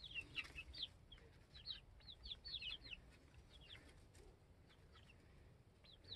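A small flock of young, fully feathered chickens peeping faintly with short, high chirps that fall in pitch, many in quick succession in the first three seconds, then sparser.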